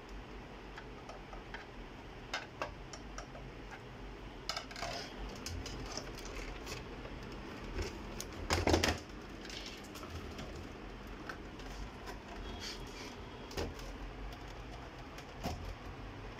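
Scattered light clicks and clatter of hands handling plastic and metal scanner parts and tools during disassembly, with one louder thump a little past halfway.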